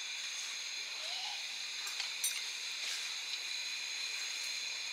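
A steady hiss with a few faint high whining tones running through it, and a couple of light clicks about two seconds in as the wooden ladle is worked in the stainless-steel pot of broth.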